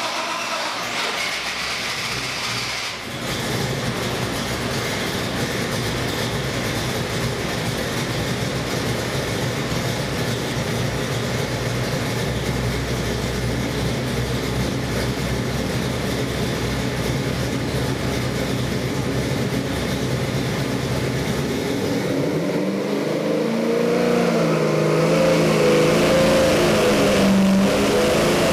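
Ford 408 Windsor stroker V8 with Jim Inglese 48 mm sidedraft carburetors running on an engine dynamometer, idling steadily just under 1,000 rpm. About 22 seconds in it is loaded for a power pull and its revs climb steadily toward 4,000 rpm, getting louder.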